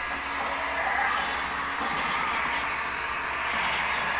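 Electric heat gun blowing steadily, aimed at the seam of a scooter headlight assembly to soften the lens sealant.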